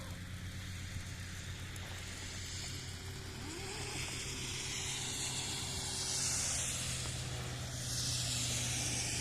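A motor running steadily with a low hum, under a rushing hiss that swells about two-thirds of the way through and again near the end.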